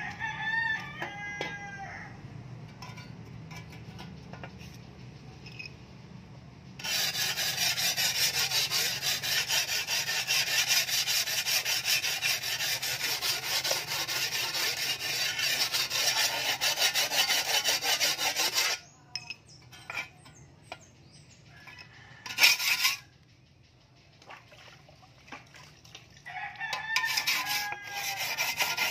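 A rooster crows at the start. Then a sharpening stone is rubbed back and forth along the edge of a steel shovel blade in rapid, even strokes for about twelve seconds, followed by a few short scrapes; near the end the rooster crows again over more scraping.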